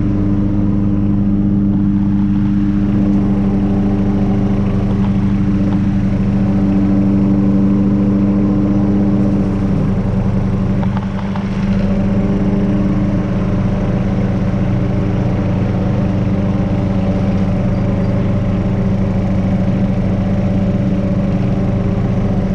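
A tractor engine and a walk-behind lawnmower engine running together in a steady drone as the tractor backs up, dragging the bucket-mounted mower across tall grass. About nine and a half seconds in, one of the tones drops away and the drone shifts slightly.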